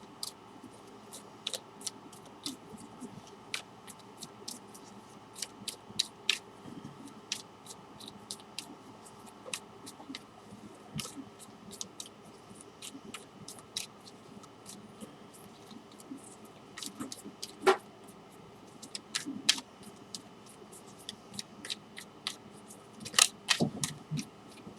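A deck of tarot cards being shuffled by hand: irregular sharp clicks and snaps of the cards, a few each second, with louder clusters near the end.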